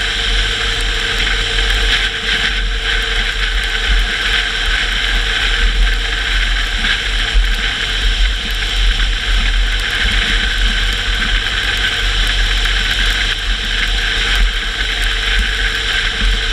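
Car driving on a wet road: steady engine and road noise with a deep rumble, even throughout.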